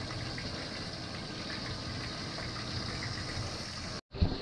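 Yellowfin tuna frying in oil in a lidded pan: a steady sizzle with small crackles. It cuts out about four seconds in and is followed by a short knock.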